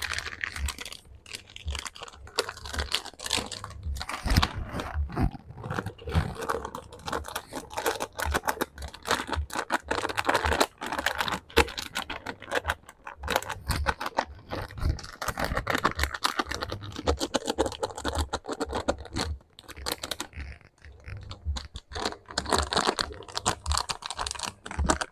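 Irregular crackling, clicking and tearing in a kitchen: potatoes frying in hot oil in a wok, with lemongrass and shallots being handled and dropped into a glass blender jug.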